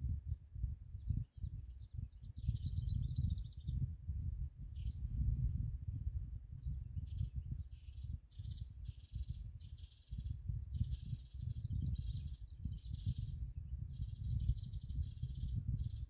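Outdoor ambience of birds chirping and trilling at intervals over a constant, fluctuating low rumble, the loudest sound.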